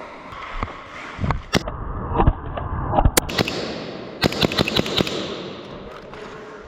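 Airsoft guns firing: single sharp snapping shots, then a quick string of about six shots about four seconds in.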